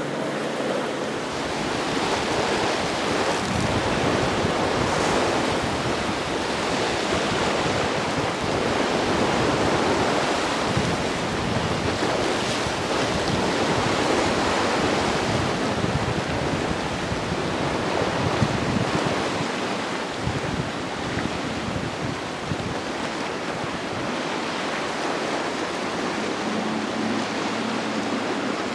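Waves surging and breaking in rough water, with wind buffeting the microphone: a steady rushing noise that swells and eases a little.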